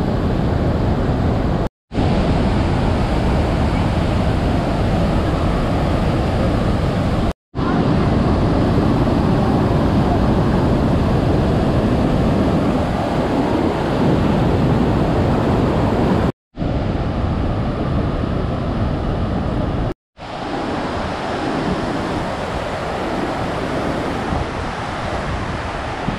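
Steady rushing noise of the Rhine Falls, a large waterfall, with wind on the microphone. It breaks off for an instant four times where shots are cut together, and is a little quieter over the last few seconds.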